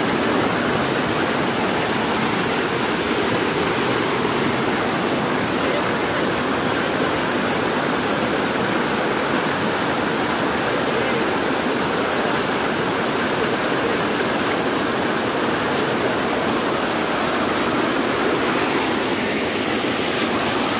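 Stream water cascading down a small rocky waterfall: a steady, even rush of white water tumbling over boulders.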